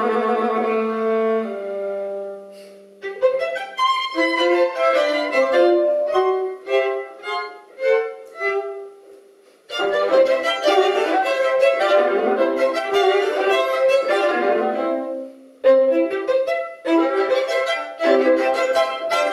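A string trio of violins plays classical music. A held chord dies away about two seconds in. Short detached notes follow, then a fuller passage, broken off briefly twice near the end.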